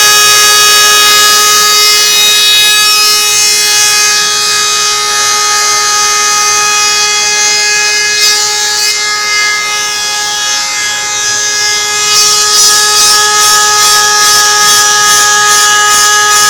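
CNC spindle running with a steady high-pitched whine while cutting Teflon (PTFE), a hiss of cutting over it. About twelve seconds in, the hiss starts to pulse regularly, two or three times a second.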